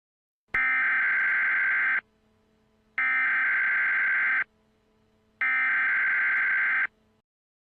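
Emergency Alert System SAME header: three identical bursts of digital data tones, each about a second and a half long with about a second between them. This is the coded header that opens a new alert, ahead of the attention tone.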